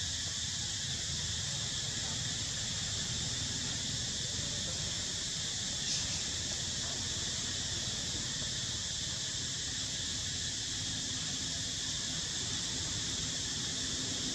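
A steady, high-pitched insect chorus drones on without a break, with a low rumble beneath it and one brief click about six seconds in.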